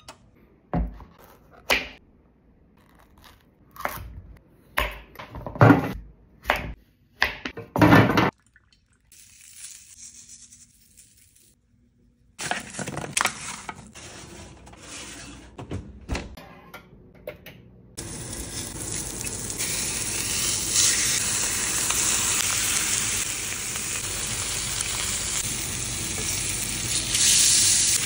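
A series of sharp kitchen knocks and clatters, then, from about eighteen seconds in, a steady loud sizzle of thick chops searing in hot oil in a stainless-steel skillet.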